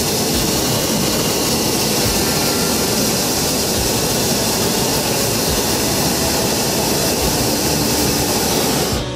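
Loud, steady wind rush over the camera microphone during a parachute jump from a hot-air balloon, stopping suddenly near the end.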